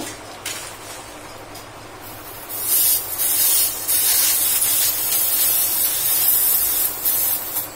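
Airsoft gas (HFC-134a) hissing from a can's nozzle as a gas-blowback pistol magazine is charged, starting a couple of seconds in with a couple of brief breaks.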